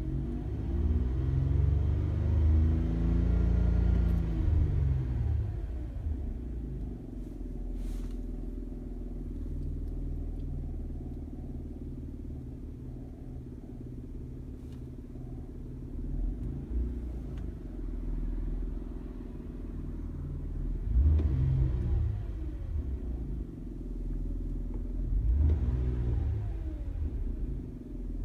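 2003 Nissan Maxima's V6 engine idling, revved up and back down at the start and twice more near the end, with a few faint clicks in between.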